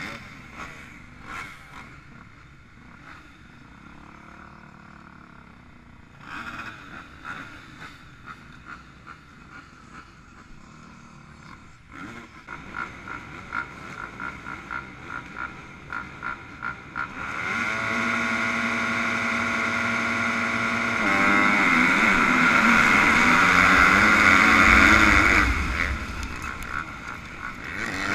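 Motocross bikes idling at the start gate, with short throttle blips building up from about 12 seconds in. About two-thirds of the way through, the launch: the onboard Yamaha YZF250F's single-cylinder four-stroke engine revs up loud and rising, shifts up once, eases off briefly near the end and revs again, with the pack's engines around it.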